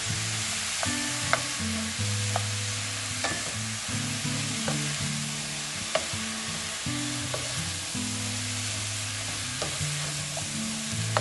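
Sliced squash and onion sizzling as they sauté in oil in a stainless steel frying pan, stirred with a wooden spoon. There are a handful of light knocks as the spoon hits the pan.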